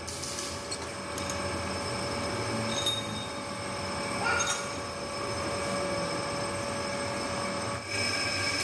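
A power tool's motor running, a steady whine with a noisy scraping haze.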